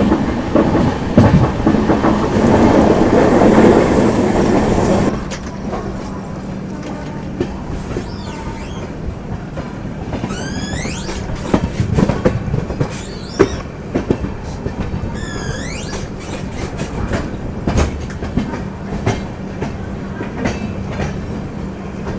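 Express passenger train running on the track, with a steady rumble and the clickety-clack of wheels over rail joints, and a few brief high wheel squeals. A loud rushing noise fills the first five seconds and cuts off suddenly.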